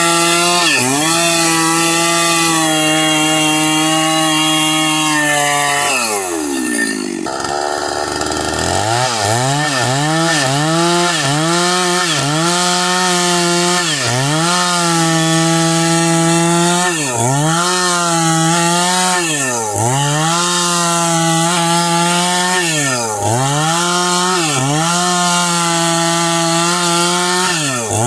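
Two-stroke chainsaw at high revs, cutting a fallen hardwood log freehand into boards. Its engine note drops almost to idle about six seconds in, then revs back up. After that the pitch sags and recovers every couple of seconds as the chain bites into the wood.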